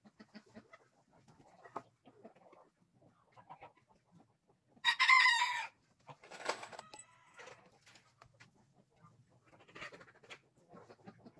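Backyard chickens clucking faintly, with one loud call lasting under a second about five seconds in and a shorter one right after.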